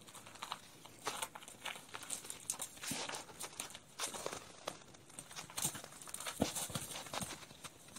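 Footsteps crunching on packed snow, an irregular run of short crackling crunches and scuffs as several people walk.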